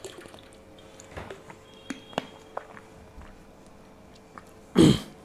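A pause in close-miked narration: a few faint mouth clicks, then one short, loud breath into the microphone just before five seconds in.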